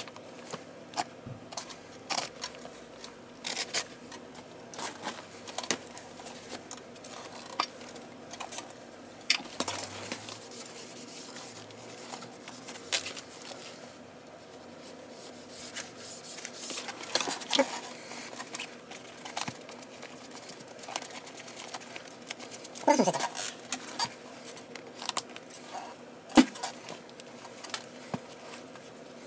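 Relacing a Mizuno baseball glove: scattered clicks and clinks of a metal lacing tool, with leather lace rubbing as it is pulled through the glove's lace holes. About 23 seconds in there is a longer rubbing squeak that falls in pitch.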